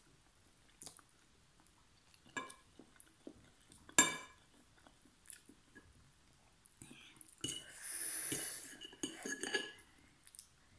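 Metal fork clinking and scraping on a ceramic plate while twirling noodles, with one sharp ringing clink about four seconds in and a cluster of clinks near the end, between bouts of chewing. A longer hissing noodle slurp comes around eight seconds in.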